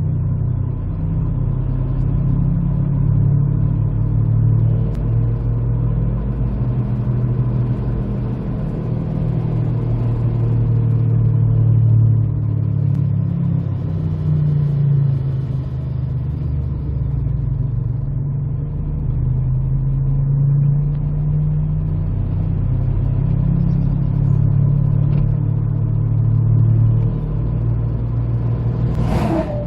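2008 Jeep Compass driving slowly, with a loud steady humming drone from the front end that swells and eases slightly as it goes. The owner traces the hum to a bad right-side front wheel bearing, after it went away when he turned the wheel to the right.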